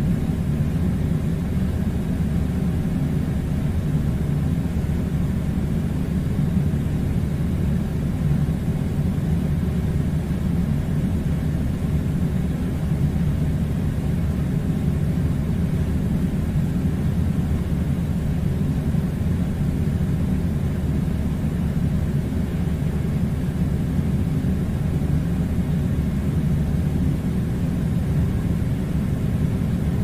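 Air conditioner running: a steady low hum and rumble with a faint hiss of air, unchanging throughout.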